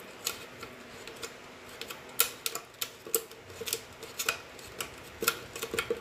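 The cut-down bottom of a thin PET plastic bottle clicking and crackling in the hands as its slit, folded rim is pressed: sharp, irregular clicks a few times a second.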